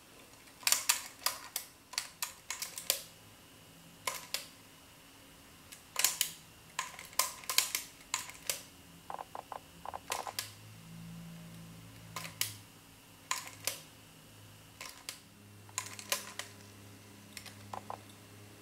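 Bare Panasonic RX-ES25 cassette deck mechanism clicking and snapping in quick, irregular clusters as its solenoid and plastic levers shift the programming wheel between modes. Under the clicks runs the low hum of its small drive motor, which grows louder about halfway through.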